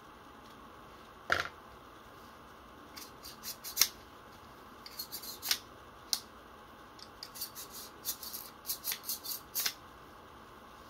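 Metal parts of a Tokyo Marui SAA .45 Artillery replica revolver clicking as it is handled and worked. There is one sharp knock about a second in, then small metallic clicks in short runs, thickest in the last few seconds.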